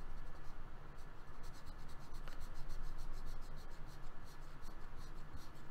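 Pen stylus scribbling on a drawing tablet in rapid back-and-forth strokes as a shape is filled in with colour, the scratching quickening about a second and a half in.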